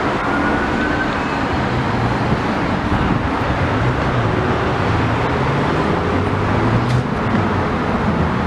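Steady street traffic noise, with the low hum of vehicle engines.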